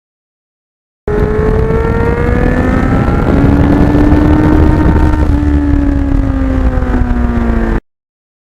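Kawasaki Ninja GPX750R inline-four engine running under way through its Norton muffler, its pitch rising gently as it pulls and then easing slightly. The sound starts and stops abruptly.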